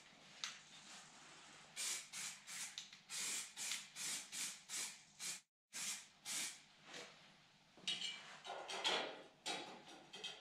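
Aerosol spray paint can spraying in short bursts, about three a second, with a brief pause near the middle and a few longer sprays near the end.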